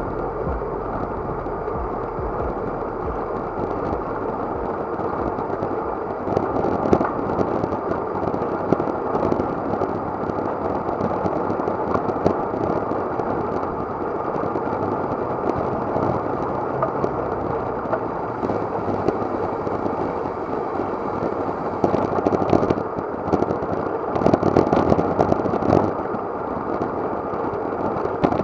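Steady rushing wind and road noise picked up by an action camera riding on a moving bicycle, with louder surges now and then.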